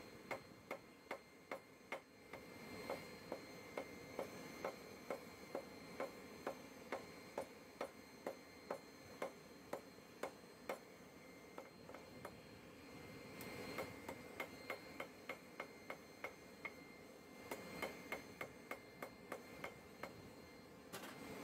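Blacksmith's 3.5-pound rounded-face hammer striking a hot steel bar on the anvil in a steady rhythm, about two to three blows a second, drawing out and tapering the bar's end. The hammering pauses briefly twice.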